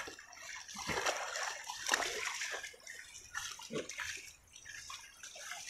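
Shallow water running and splashing along a narrow channel freshly dug through sand, in uneven surges.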